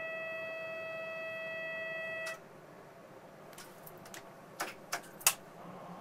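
A steady electronic tone sounds in the Z 50000 Francilien's driver's cab and cuts off after about two seconds. A few sharp clicks follow as the driver works the control handle on the desk.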